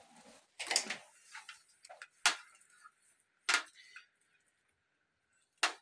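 A few sharp clicks and knocks, about a second or more apart, as the hard plastic washing-machine lid and its hinge piece are handled and set in place.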